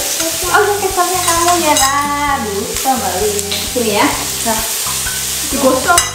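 Meat sizzling in a pan on a portable gas stove while it is stirred and turned with metal tongs.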